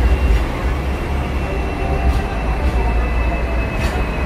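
Hong Kong double-decker tram running along its street track, heard on board: a steady low rumble with a faint high whine and a couple of light clicks.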